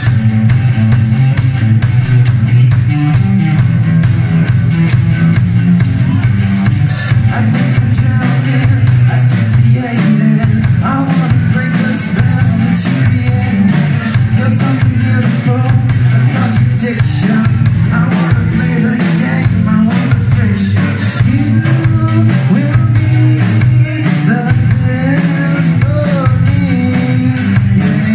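Live rock band playing: electric guitar, drum kit and keyboard, with a young male lead singer.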